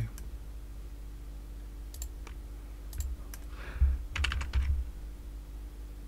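Computer keyboard keys and mouse buttons clicking every so often, with a quick run of several clicks about four seconds in.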